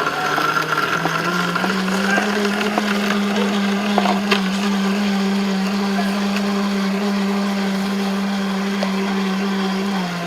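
Electric blender motor running steadily. Its hum climbs in pitch about a second in as it comes up to speed and drops back near the end, with a few light clicks over it.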